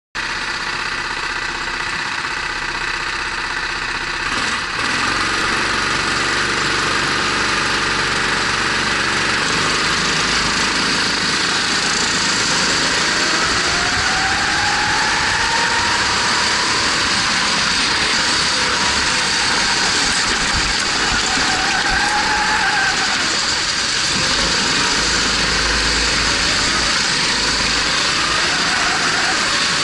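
Onboard sound of a Formula 270 racing kart on track: its engine revving up and down through the gears and corners, largely buried under steady wind and spray noise on the camera. The sound gets louder about four and a half seconds in, and the engine pitch climbs noticeably a few times later on.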